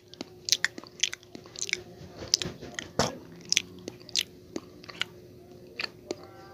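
Close-miked eating of Hawaiian pizza: biting and chewing, with many short crunches and wet mouth clicks at an irregular pace.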